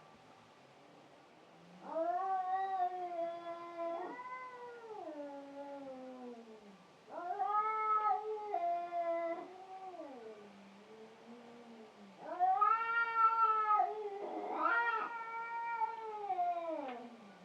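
Cats yowling in a fight: three long, wavering caterwauls with short pauses between, the last briefly overlapped by a second cat's rising cry.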